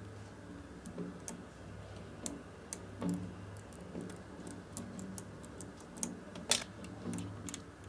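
Small magnetic balls clicking as they snap one at a time onto a ring of other magnetic balls: irregular sharp ticks, one louder click near the end.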